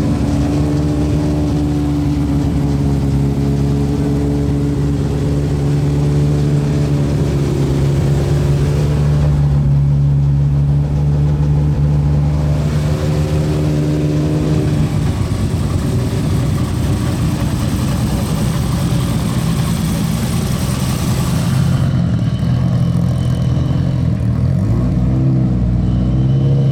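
Car engine running close by, holding a steady note, turning rougher and noisier about fifteen seconds in, with a pitched engine note coming back and shifting near the end.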